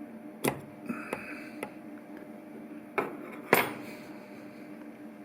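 Hydraulic solenoid valves from a CNC lathe turret clicking as they are switched on and off with 12 volts: a handful of sharp metallic clicks, the loudest pair a little after three seconds in, over a steady low hum.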